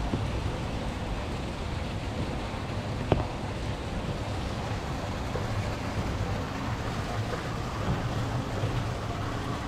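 Steady wash of noise from a rainy street: the hiss of rain over a low traffic rumble, with one sharp click about three seconds in.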